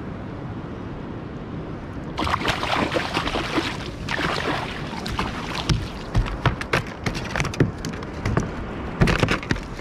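A hooked kob thrashing and splashing at the surface right beside a kayak as it is reeled in. The splashing breaks out about two seconds in and carries on in irregular bursts, with a cluster of heavier knocks near the end.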